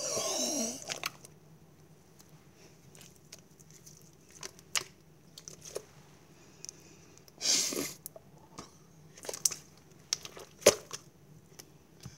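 Iceberg slime being squished and pressed by hand: a wet squelch in the first second, then scattered sticky clicks, pops and crackles, with another longer squelch a little past halfway.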